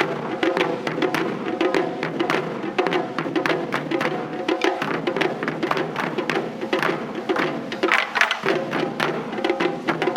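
Japanese taiko drum ensemble playing a fast, driving rhythm: dense, sharp strikes with dry clacking hits mixed in, and a brief thinning of the beat about eight seconds in.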